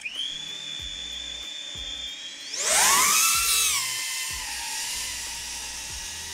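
GEPRC Cinelog25 cinewhoop's brushless motors spinning up with a steady high whine, then throttling up sharply about two and a half seconds in: a loud rising whine that eases back to a steadier, lower whine as the drone flies.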